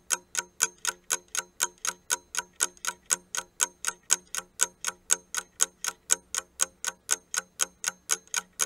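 Clock-ticking sound effect, sharp even ticks at about four a second, running with an on-screen countdown timer as the time to answer runs out.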